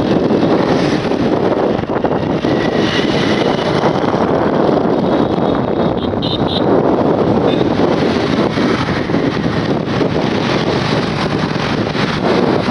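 Wind buffeting the microphone and the steady rush of riding on a moving motorbike in road traffic, with passing motorbikes. Two short high beeps come about six seconds in.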